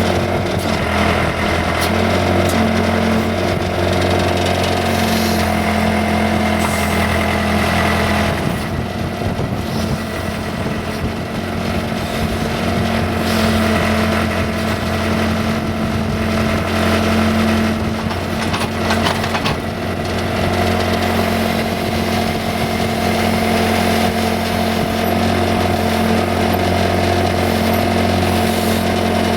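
Case 580C backhoe's four-cylinder diesel engine running steadily as the backhoe digs, its note shifting under load about a third of the way in and again about two-thirds in.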